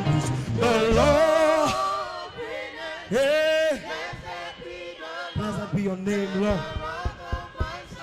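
Live gospel worship music: a saxophone melody with wavering vibrato and long held notes, with singing.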